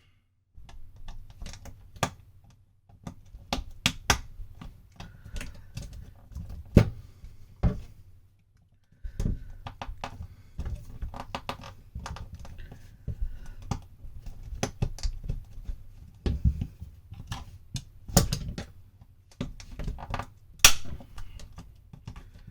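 Irregular sharp clicks, taps and scraping of a hand tool prying at the sealed plastic case of a heated-grip controller to break it open, with a short pause about a third of the way in and one loud snap near the end.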